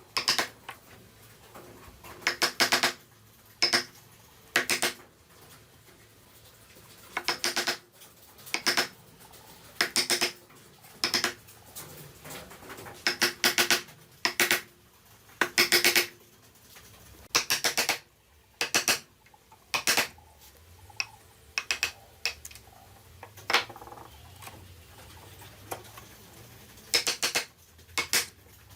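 Chisel struck with a mallet: sharp knocks with a short ring, coming in quick clusters of two to five strikes every second or two.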